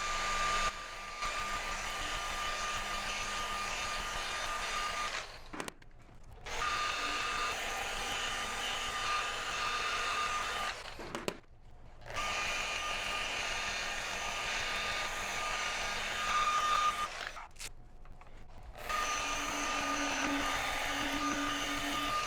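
Electric grinder with an abrasive pad running against glass, grinding out scratches: a steady motor whine that stops briefly three times and starts again.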